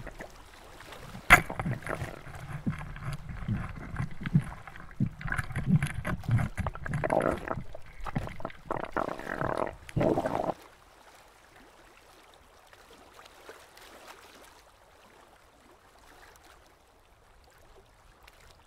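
Muffled underwater camera sound of a spearfisher working at a rock crevice: irregular knocks, rumbles and gurgling, with one sharp click about a second in. It cuts off about ten seconds in, leaving a faint hiss.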